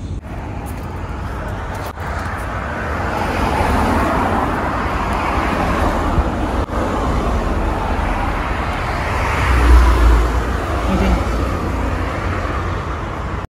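Road traffic going past close by: a steady rush of tyres and engines that swells as cars pass, with the loudest car going by about ten seconds in.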